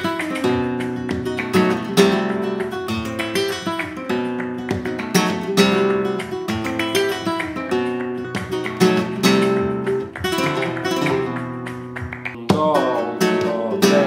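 Flamenco guitar playing a bulerías remate, a short closing phrase in the bulerías rhythm, picked as arpeggios over chords. About twelve and a half seconds in it changes to quicker runs of notes.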